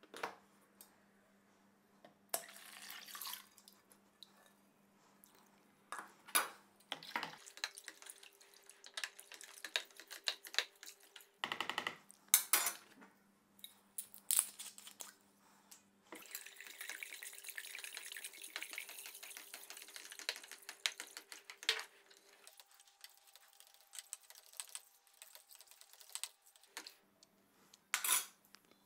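Clinks and knocks of glass bottles and a steel ladle against a plastic bucket, with liquid poured into the bucket for about six seconds past the middle: alcohol going into the gentian wine and syrup to be stirred in.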